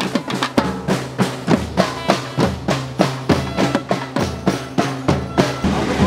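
A street drum group of marching snare drums beaten with sticks and a large frame drum plays a fast, driving rhythm, about three or four strong beats a second. The beat breaks off shortly before the end.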